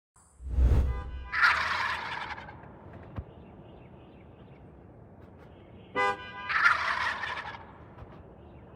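Turkeys gobbling twice, a burst of about a second each time, each one set off right after a short honking tone.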